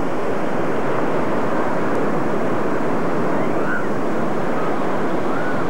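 Steady rushing roar of ocean surf breaking on the rocky shore, unbroken at an even level.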